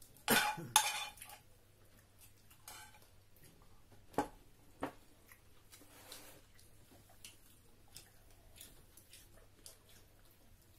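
A metal spoon clinks and scrapes against a small metal frying pan and plates as food is served. There are two loud clanks just after the start and two more about four seconds in, with fainter clicks of cutlery and dishes between.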